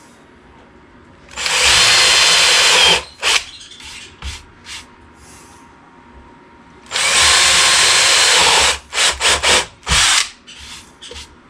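Power drill with a step bit boring holes through MDF: two runs of about two seconds each, then several short bursts of the trigger near the end.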